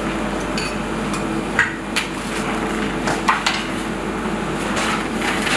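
A few sharp knocks and clinks of bowls and utensils being handled on a stainless-steel kitchen counter, over a steady background hum.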